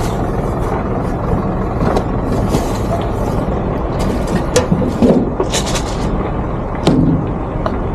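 Plastic bags rustling and a few light knocks as things are moved about on a truck's side kitchen-cabinet shelves. Underneath is a steady low engine rumble, like idling trucks.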